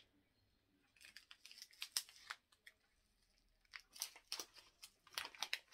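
Packaging being opened by hand: a tea pouch crinkling and rustling in irregular spells, about a second in and again near the end.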